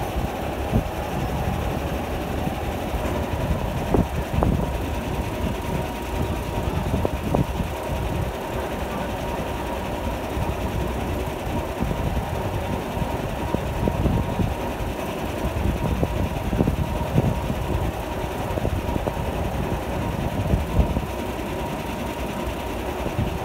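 Lattice-boom crane's diesel engine running steadily with a constant thin whine, broken now and then by dull knocks.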